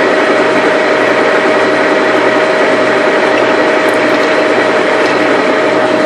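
Lodge & Shipley engine lathe running with its spindle turning: a steady gear-driven whir and clatter from the geared headstock, with a constant tone running through it.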